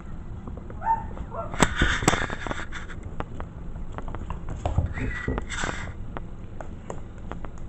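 Five-week-old Maltese-mix puppies nosing and mouthing a camera up close: scratchy rubbing of fur and paws over the housing and a run of sharp clicks and taps, with a few short high squeaks.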